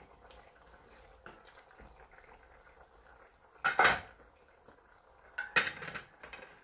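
Cookware clanking on a stainless steel saucepan: two sharp metal clatters about two seconds apart, the first near the middle. Between them the pot of mung beans bubbles faintly at the boil.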